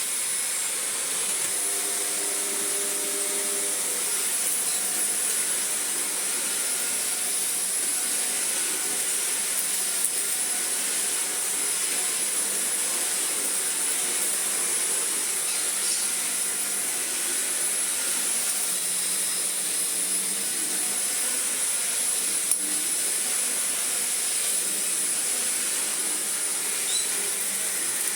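Shark Navigator Lift-Away upright vacuum cleaner running steadily with a high whine from its motor, being worked over a deep-pile rug. The motor runs, the sign that the newly fitted mains cable works.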